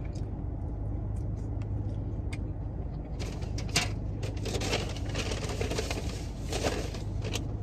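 Rustling, scraping and clicking from about three seconds in as someone rummages for a plastic spoon inside a car, over the steady low hum of the car running.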